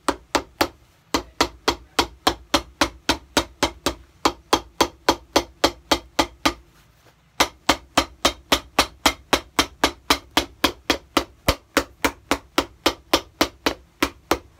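Cobbler's hammer pounding a leather shoe sole down onto the shoe in quick, even strikes, about three a second. The strikes pause briefly about a second in and again about halfway through.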